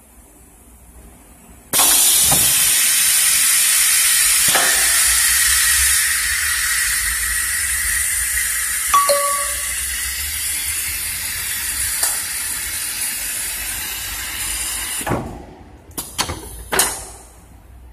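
Production-line turnover machine flipping a stainless steel cabinet: a loud, steady hiss starts suddenly and cuts off after about thirteen seconds. Sharp knocks come now and then, and a cluster of clicks follows near the end.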